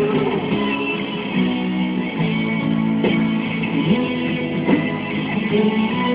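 Live rock band playing a guitar-led passage, with electric guitar chords over the band. It is recorded through an old phone's microphone, so it has no treble above the middle range.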